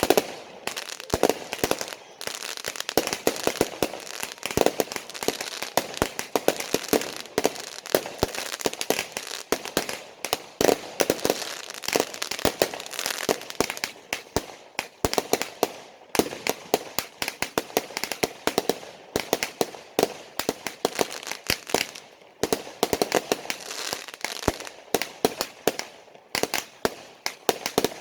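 Fireworks going off: a dense, rapid run of sharp cracking bangs, like a long string of firecrackers, with brief lulls now and then.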